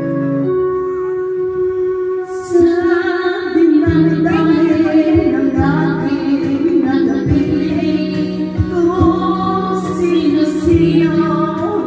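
A woman singing karaoke into a microphone over a backing track. The track opens with held instrumental chords, her voice comes in about two and a half seconds in, and a steady beat and bass join soon after.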